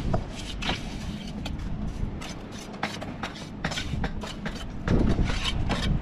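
Steel mason's trowel scraping and spreading wet mortar along the top of a stone wall, a series of short rasping strokes, the loudest about five seconds in.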